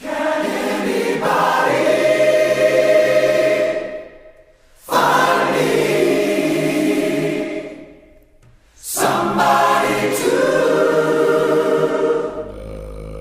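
A choir singing three long held phrases with short breaks between them, loud throughout.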